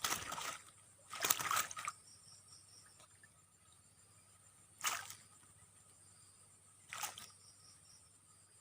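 Water splashing and sloshing in a few short bursts: two close together in the first two seconds, the second of them the loudest, then single splashes about five and seven seconds in.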